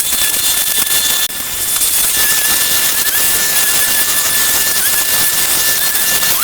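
Loud, steady hiss with a high, steady motor whine over it; the whine sags briefly in pitch a few times and climbs back up near the end.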